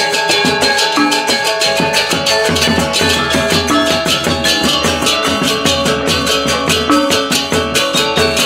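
Balinese gamelan gong ensemble playing a tabuh telu lelambatan piece: bronze metallophones struck with mallets in rapid, even strikes over sustained ringing tones.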